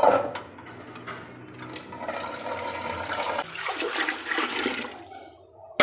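Water poured from a jug into a pot of soaked rice, splashing steadily, then stopping near the end.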